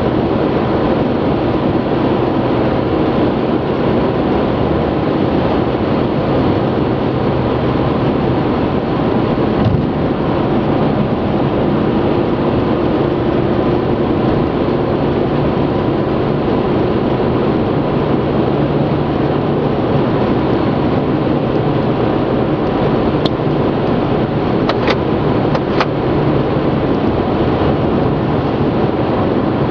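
Car driving at speed, heard from inside the cabin: a steady rush of tyre and road noise with engine hum. Three brief faint clicks come a few seconds before the end.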